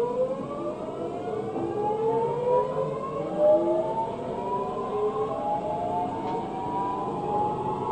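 Busan Metro 2000 series train's GTO-VVVF inverter whining as the train accelerates: several tones climb in pitch together, stepping up in stages, over the steady rumble of the running train.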